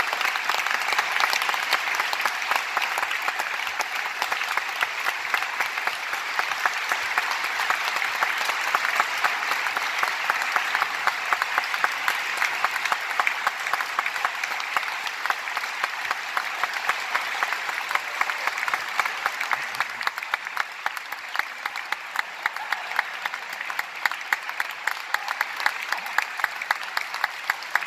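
Audience applauding steadily. The clapping thins out in the last several seconds, with single claps standing out.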